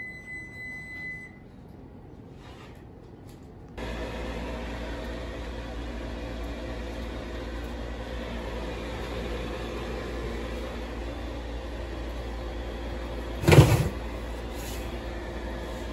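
A steady high electronic beep for about the first second. From about four seconds in comes the steady hum and whoosh of an oven's fan, heard through the open oven door. Near the end there is a single loud metal clank.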